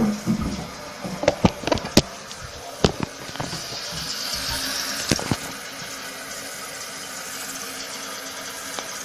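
Steady hiss of water running in a toilet tank, with several sharp clicks and knocks in the first three seconds and another about five seconds in.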